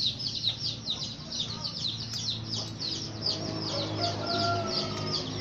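A small bird chirping rapidly and without pause, high falling chirps about four a second, with a chicken clucking in the background partway through.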